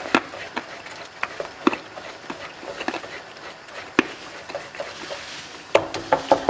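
Wooden spatula scraping and knocking against a nonstick wok while stirring sugar melting into caramel, with sharp taps scattered through, the loudest about four seconds in.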